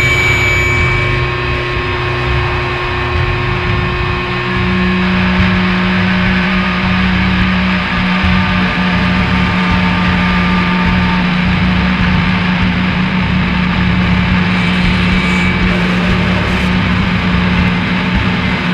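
Loud, dense wall of distorted noise music with steady held tones; a strong low drone comes in about four and a half seconds in and holds.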